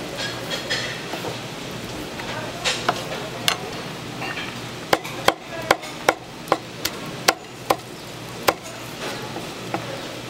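Kitchen knife chopping sundae (Korean blood sausage) on a wooden cutting board: sharp knocks of the blade on the board, scattered at first, then a steady run of about two to three strikes a second for a few seconds past the middle.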